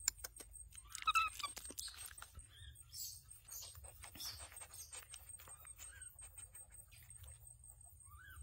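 Baby monkey's short squeaky calls, one about a second in and a short rising one near the end, among small clicks and rustles of handling and chewing.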